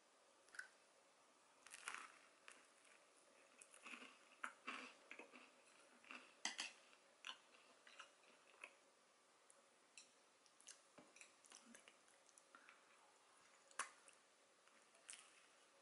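Faint, irregular crunching and chewing of crisp-toasted baguette topped with soft-boiled egg, a scatter of short crackly crunches with quiet gaps between.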